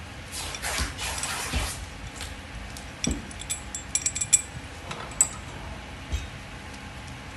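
Steel bracket parts and bolts being handled: a scraping rustle in the first second or two, then a quick run of sharp metal clinks with a brief high ring around the middle, and a couple of single clinks and a knock near the end.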